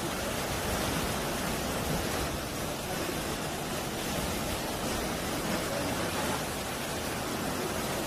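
Sea waves washing and foaming over low shore rocks: a steady rush of surf with no single crash standing out.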